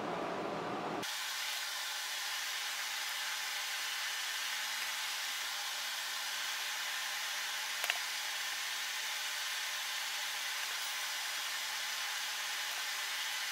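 Steady even hiss with a faint low hum underneath, starting abruptly about a second in, and a single faint click about eight seconds in.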